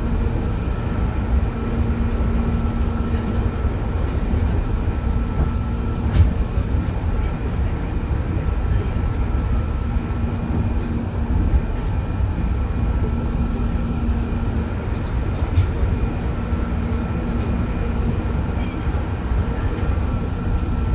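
JR 205 series electric train heard from inside the passenger car while running along the line: a steady rumble of wheels on rail with a constant hum, and a few sharp clacks over rail joints.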